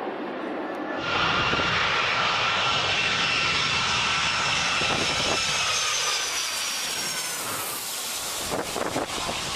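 Aircraft engines running loud: a rush of noise with a high whine that falls slightly in pitch, starting suddenly about a second in. A few sharp crackles near the end.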